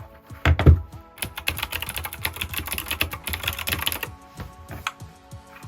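Typing on an Anne Pro 2 mechanical keyboard with clicky Gateron Blue switches: a quick run of key clacks that thins to sparser taps after about four seconds. A low thump comes about half a second in.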